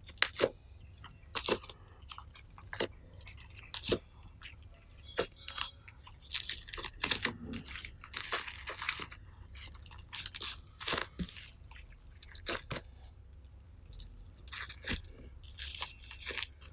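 Foaming slime being stretched and folded by hand: a steady run of wet clicks and pops, with longer stretches of crackling around the middle and near the end.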